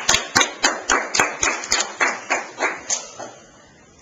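Hands clapping: a short round of evenly spaced claps, about four a second, that dies away about three seconds in.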